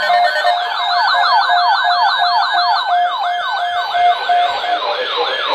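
Several weather alert radios sounding their alarms together for a flash flood watch: a pulsed beeping tone, about three beeps a second, over a rapid falling siren-like whoop of about five sweeps a second. The beeping stops near the end while the whooping goes on.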